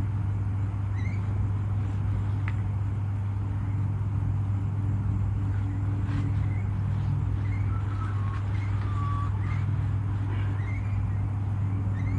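A steady low hum, with short high chirps scattered over it and a brief whistled tone about eight to nine seconds in.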